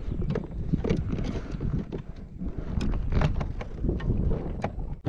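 Wind buffeting the microphone, with a handful of small, sharp knocks and clicks scattered through it.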